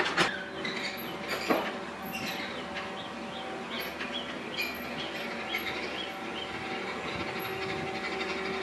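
Kubota KX91-2 mini excavator's diesel engine running steadily as the machine tracks and works, with two sharp clanks in the first two seconds and a series of short high squeaks in the middle.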